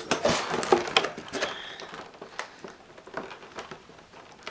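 Statue parts being tugged and worked in their packaging: a busy patch of rustling and clicking for the first second and a half, then scattered ticks. The part won't come free because it is held in by fine wire ties.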